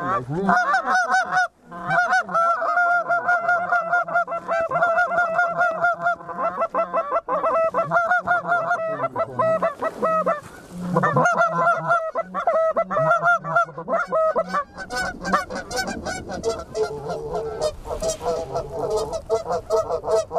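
Canada goose honks and clucks, many calls overlapping in a rapid, steady chatter, from hunters blowing goose calls at approaching geese, with a brief pause about a second and a half in.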